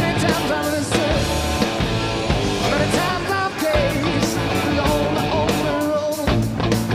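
Rock song with electric guitar and a steady drum beat.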